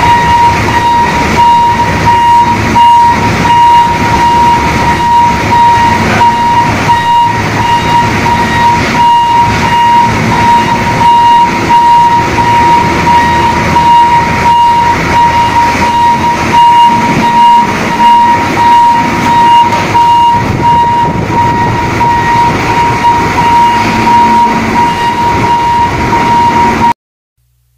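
Parked Hino 500 tractor unit with a refrigerated container running: a steady mechanical rumble under a constant high-pitched whine. The sound cuts off suddenly near the end.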